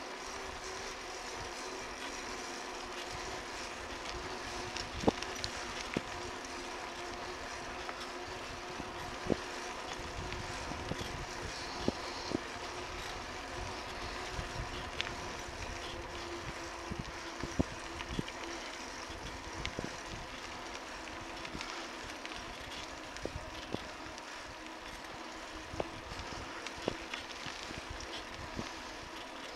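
Bicycle rolling along a paved trail: steady tyre and wind noise with a faint steady hum, broken by about a dozen short sharp knocks and rattles.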